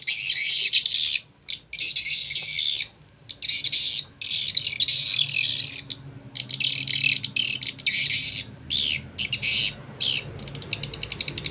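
Recorded swiftlet mating call (a lure sound for swiftlet houses) played through a pair of horn tweeters: rapid high twittering chirps in bursts with short breaks, over a faint low hum.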